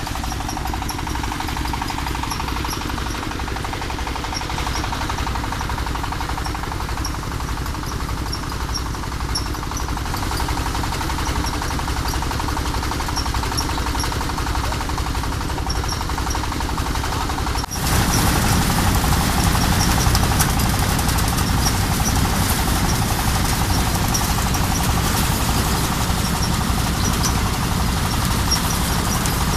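Engine-driven rice threshing machine running steadily with a constant low mechanical drone. Just past halfway the sound turns abruptly louder and fuller.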